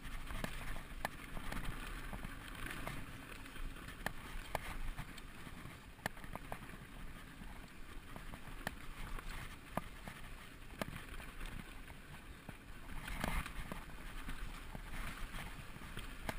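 2012 Specialized SX Trail mountain bike riding fast down a dry, rocky dirt trail: tyres rolling over dirt and stones, with irregular sharp clicks and rattles from the bike over the bumps. A louder rough patch comes about thirteen seconds in.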